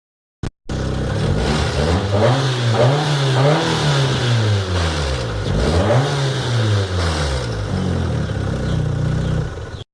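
Fiat Doblò engine running with its air filter removed, revved up and down twice and then settling steadier near the end.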